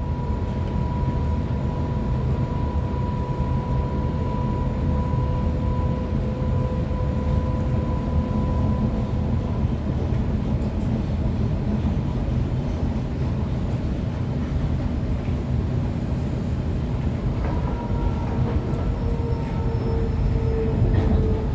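Waratah electric multiple unit running, heard from on board: a steady rumble of wheels and running gear under a thin electric whine. Near the end the whine falls slightly in pitch as the train slows.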